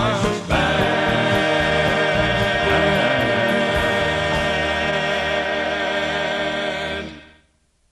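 Gospel vocal group singing with band backing, holding the song's long final chord, which ends about seven seconds in.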